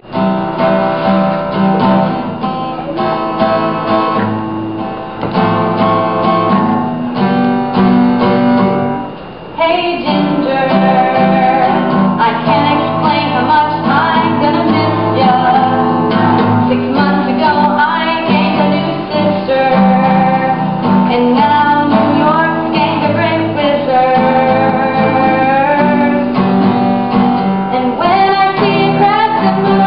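Acoustic guitar strummed in a steady rhythm, with a woman singing along from about ten seconds in.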